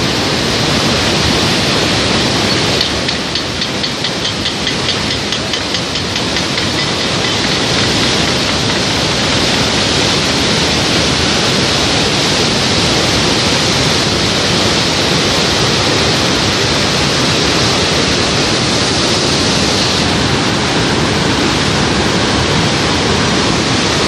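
Fast mountain river rushing through whitewater rapids: a loud, steady roar. A run of fast, even ticks sits faintly under it a few seconds in.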